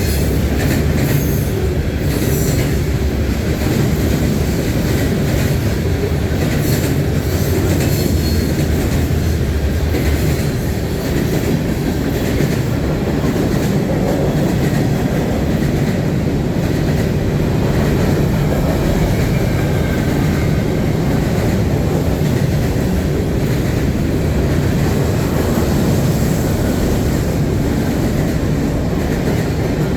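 CN freight train rolling past: a steady loud rumble of railcar wheels on the rails with some clacking, a low engine hum in the first third, and a faint wheel squeal midway.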